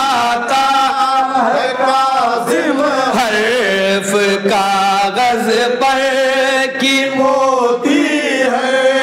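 Men's voices singing an Urdu manqabat, a devotional praise poem, in long drawn-out melodic lines that hold and glide between notes without a break.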